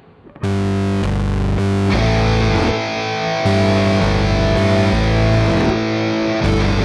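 Rock music with distorted electric guitar. It drops out briefly just after the start, then comes back and grows fuller about two seconds in.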